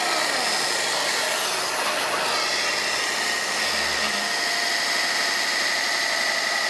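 Vevor belt and disc sander running with a wooden stick forced hard against the moving sanding belt, a steady loud sanding noise with a steady high whine in it, as the stick is pushed in to try to stall the motor.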